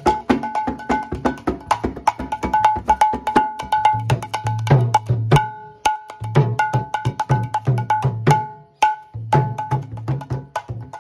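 Gouranga mridanga, a two-headed Bengali barrel drum, played by hand in a fast rhythm: sharp, ringing strokes on the small treble head mixed with deep strokes on the large bass head. The bass strokes drop out briefly about halfway through, and the playing dips for a moment near the end.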